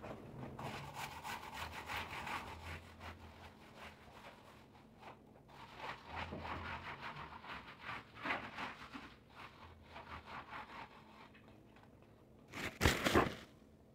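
Stiff-bristled broom scrubbing a wet, soapy tiled floor in quick back-and-forth strokes, its bristles scraping on the tile. The strokes ease off for a while in the middle. Near the end comes a louder burst about a second long.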